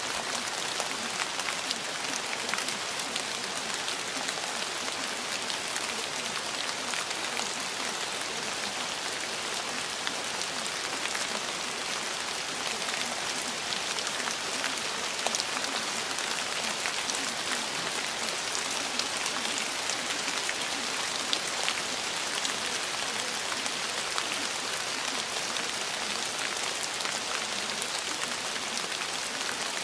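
Steady rain: an even hiss of rainfall with many small drop ticks scattered through it.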